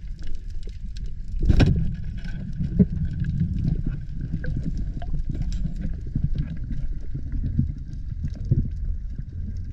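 Underwater sound heard through a camera housing: a steady muffled low rumble with scattered small clicks and a faint thin steady whine. About a second and a half in there is one sharp loud crack as the pole spear is thrust at a sea bass.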